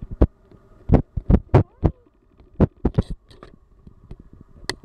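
Irregular dull thumps and rubbing on the microphone as a cat presses its nose and face against the camera, about a dozen knocks spaced unevenly.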